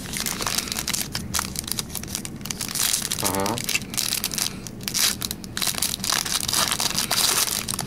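Foil trading-card pack crinkling and tearing as hands pull it open, a dense run of irregular crackles.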